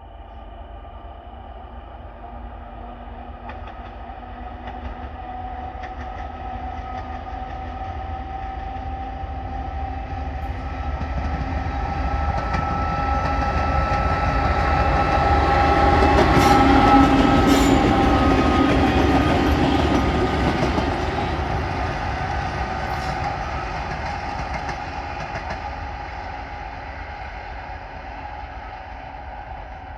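A 2TE116 two-section diesel locomotive approaches with its train, passes close by and draws away. Its diesel rumble carries a steady whining tone and grows louder to a peak a little past halfway, with a few sharp clicks around the loudest moment, then fades.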